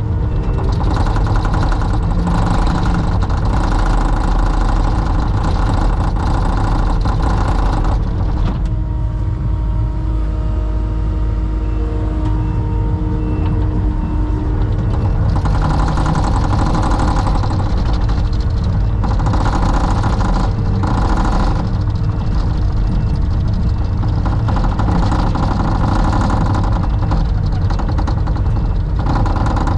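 Heavy diesel engine running loudly and steadily, picking up in spells with extra higher-pitched noise during the first eight seconds and again about halfway through.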